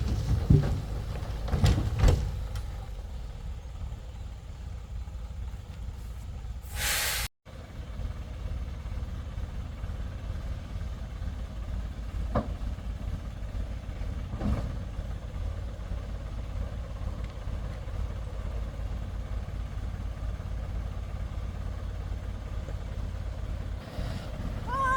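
Engine running steadily with a low rumble. There are a few knocks in the first two seconds and a short burst of hiss about seven seconds in.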